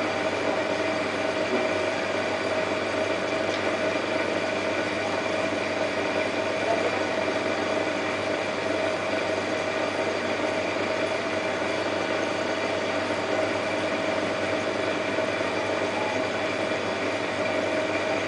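Reef Octopus needlewheel protein skimmer running steadily: an even pump hum with a constant tone, over a rushing hiss of air and water churning through the skimmer.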